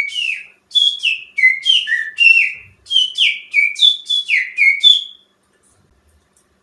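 Finger whistling that imitates a greater green leafbird's (cucak ijo) song: a quick series of short, loud whistled notes, each sliding down in pitch, about three a second. It stops about five seconds in.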